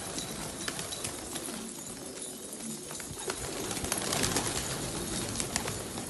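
Domestic pigeons cooing, with scattered sharp clicks over a steady background hiss.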